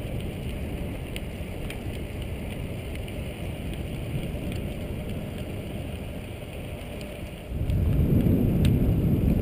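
Wind noise on a GoPro's cotton-padded microphone while riding a recumbent trike: a steady rumbling hiss that grows louder and deeper about seven and a half seconds in.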